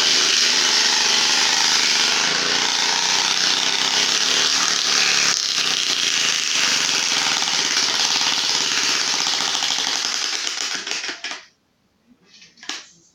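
A plastic card held against the spokes of a pedalled bicycle wheel, flapping against each spoke in a fast, steady clatter that imitates a motorcycle engine. It stops abruptly about 11 seconds in.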